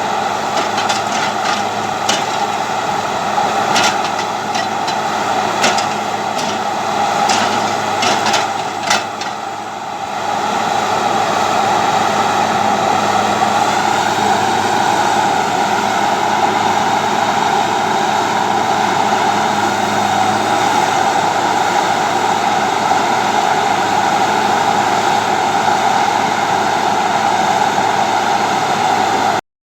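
Heavy machine's diesel engine running steadily, with a series of sharp knocks during the first ten seconds. The sound cuts off suddenly just before the end.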